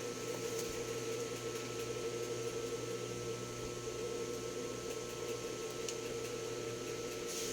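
Steady electrical or machine hum with a faint high whine, and a few faint clicks.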